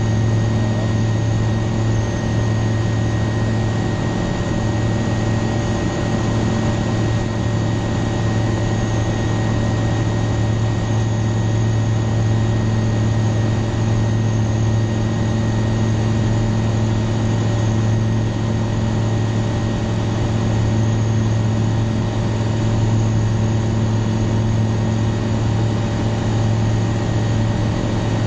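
Aeroprakt A.22-LS Foxbat light aircraft in flight, its piston engine and propeller running as a steady, unchanging drone with a strong low hum. There are no changes in power.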